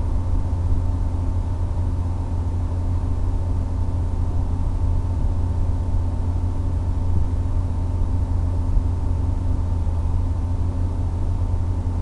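HobbyZone Super Cub RC plane in flight: a steady low rumble with a faint steady hum, typical of wind and motor noise heard from the airframe.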